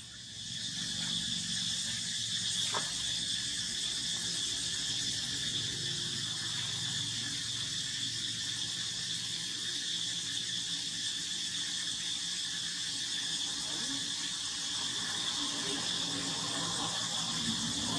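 A steady chorus of insects trilling at a high, even pitch, with a faint click about three seconds in.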